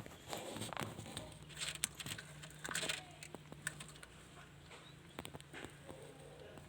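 Faint rustling and scattered light clicks over a steady low hum, from chicks and eggs in a hatching incubator.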